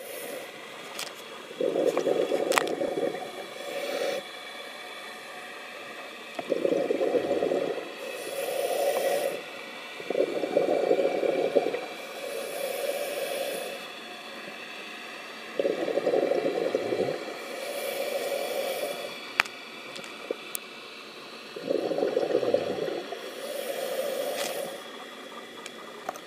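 A scuba diver breathing through a regulator underwater: five breaths, one every five to six seconds, each a loud burble of exhaled bubbles followed by a quieter hissing stretch.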